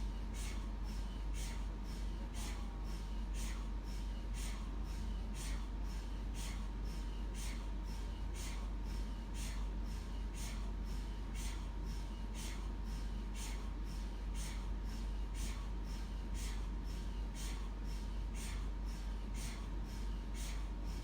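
MRI scanner running a scan sequence: its gradient coils pulse in an even rhythm, about two beats a second, over a constant low hum and a faint steady tone.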